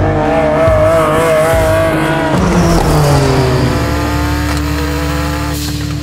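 The Hoonipigasus, a twin-turbo flat-six Porsche 911 race car, running loud at high revs. About two seconds in its pitch falls away, and it settles into a steady lower note that slowly fades as the car drives off down the road.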